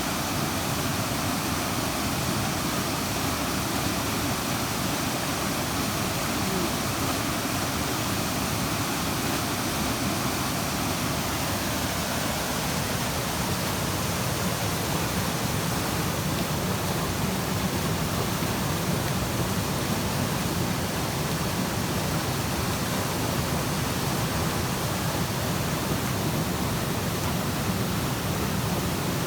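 A creek waterfall and its white water rushing steadily, an even hiss with no breaks.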